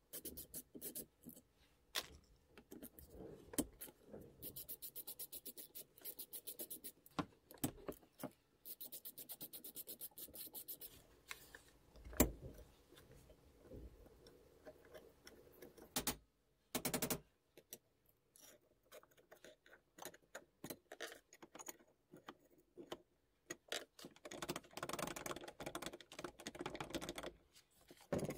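A screwdriver turning screws out of the metal gear housing of a Makita UT2221 power mixer. Runs of fast, even clicking and scraping, with a single sharp knock about twelve seconds in and clattering from handling near the end.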